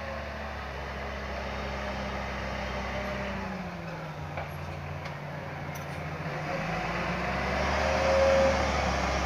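John Deere tractor engine running as the tractor drives over a heap of chopped maize silage to pack it. The engine note drops lower about a third of the way in, then comes back up and grows louder near the end.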